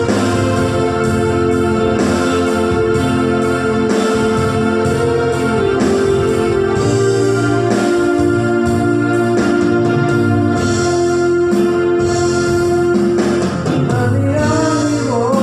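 Electronic keyboard playing sustained organ-like chords over a steady accompaniment beat, with a voice singing along, the sung line most clearly heard near the end.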